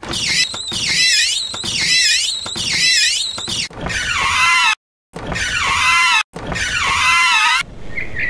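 A Bobby Car, a plastic ride-on toy car, squeaking loudly in a steady rhythm, one high squeal about every 0.8 seconds, then lower, longer squeals after about four seconds. It is a dry squeak of the kind that a drop of oil cures.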